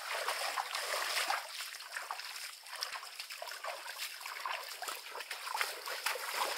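Footsteps wading and splashing through a shallow, muddy stream, with many small irregular splashes over trickling water.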